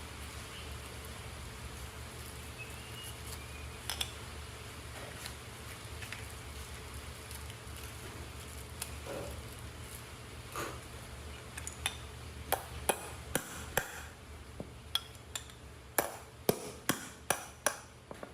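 A run of sharp knocks, about two a second, starting about two-thirds of the way in, over a steady low hum.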